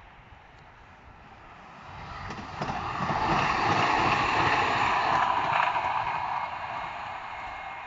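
Electric tram-train passing close by: rush of wheels on rail that builds about two seconds in, peaks through the middle and fades as it moves away.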